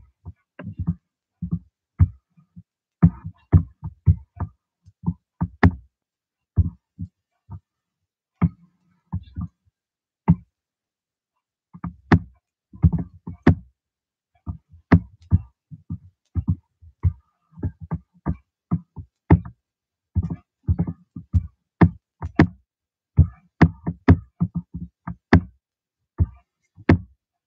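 Irregular short knocks and clicks, a few a second in clusters with brief pauses between.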